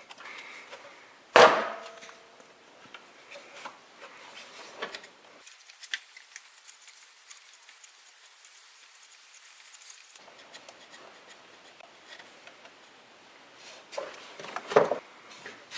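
Hand tools and a small bolt being handled at the engine: a sharp metallic clink with a brief ring a little over a second in, then faint scattered clicks and rubbing, and a few louder knocks near the end, as the PCV valve's retaining bolt is taken out.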